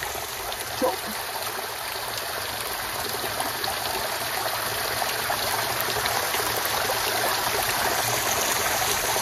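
Water pouring in many thin streams down through tree roots and splashing steadily into muddy pooled water in a flooded hollow, growing a little louder.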